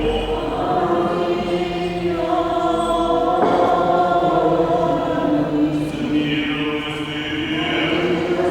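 Orthodox liturgical chant: several voices singing long held notes together, the pitch moving slowly from note to note.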